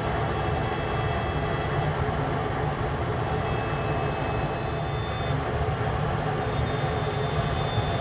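A rotary tool's small burr grinding lines into sterling silver while a bench dust collector runs, making a continuous, even mechanical whir.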